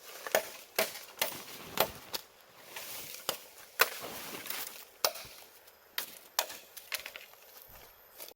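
Wood being chopped with a blade: about a dozen sharp strikes at uneven intervals.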